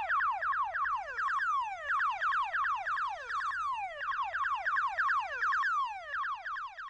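Electronic title-card sound effect: a rapid stream of overlapping zaps, each a quick falling tone, several a second.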